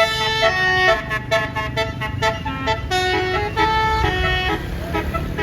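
Basuri telolet multi-trumpet air horn on a tour bus playing a tune: a quick run of clear horn notes stepping up and down in pitch, each starting sharply. A low engine and traffic rumble runs underneath.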